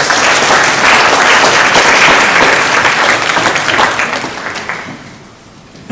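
An audience applauding: dense clapping that starts at once, holds steady for about four seconds, then thins and dies away about five seconds in.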